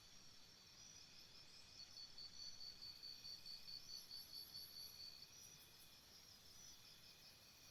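Faint chirping of crickets: steady rapid pulsing trills, with one louder trill from about two seconds in to about five seconds in.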